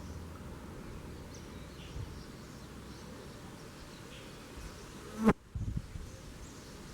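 Buzzing like a flying insect over steady outdoor noise. A sharp click comes a little past five seconds in, followed by a couple of low thumps.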